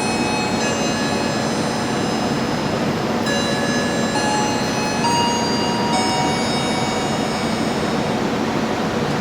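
Passenger train running through the station: a steady rushing noise of wheels on rails, with thin high ringing tones that shift in pitch every second or so.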